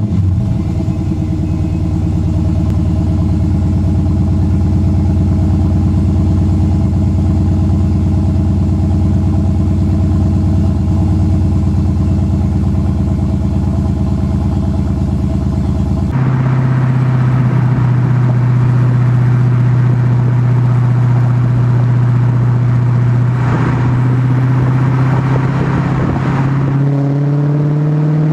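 A 2012 Dodge Challenger SRT8's 6.4-litre 392 HEMI V8, with its exhaust resonators deleted, idles steadily just after starting. A bit over halfway through its note changes abruptly, and near the end the pitch rises as the car pulls away under throttle.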